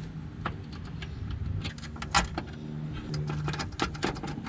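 Small metallic clicks and taps of bolts, nuts and cable terminals being handled as a winch isolator switch is bolted onto its bracket, with a low hum underneath.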